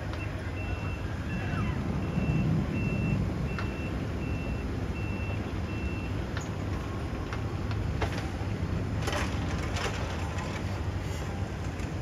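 Backup alarm on a construction machine beeping in a steady even rhythm, about eight beeps, stopping about six seconds in. Heavy equipment engines hum underneath, with a few sharp metallic clanks in the second half.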